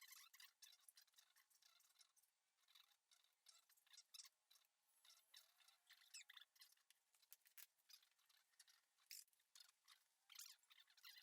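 Near silence, with faint, irregular clicks and scrapes from hand work on an engine.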